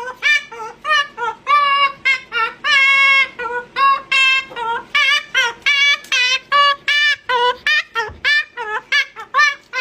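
A high-pitched voice singing a bouncy tune alone, in short separate notes a few times a second, with no accompaniment.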